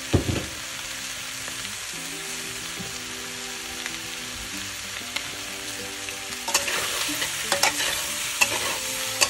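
Chicken pieces, onion and green capsicum sizzling steadily in a stainless steel pan, with a low thump right at the start. From about six and a half seconds in, a spatula scrapes and knocks against the pan as the mix is stirred.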